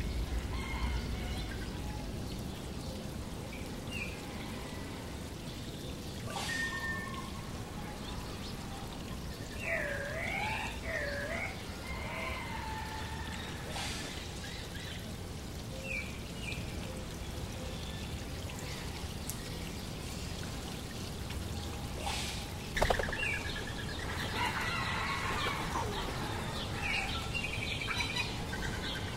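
Water from a small waterfall running steadily, with birds calling over it: sweeping up-and-down whistles about ten seconds in and a busier spell of chirps near the end. A single sharp click a little after twenty seconds is the loudest moment.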